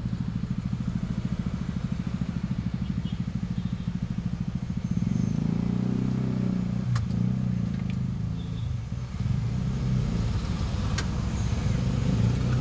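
Bass-only sound from a speaker driven by a 100 W power amplifier board through a low-pass filter (subwoofer preamp), being tried out for the first time. A fast, even pulsing low hum at first, then about five seconds in a louder, shifting run of low notes, with the higher frequencies filtered out.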